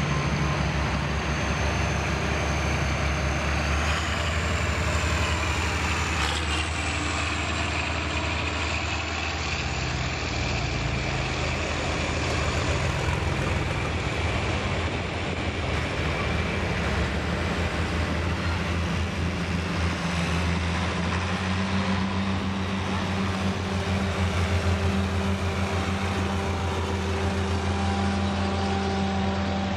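Farm tractors, a John Deere and red International Harvester machines, driving past one after another at slow parade pace, their engines running with a steady low drone. A high thin whine in the first few seconds steps up in pitch twice.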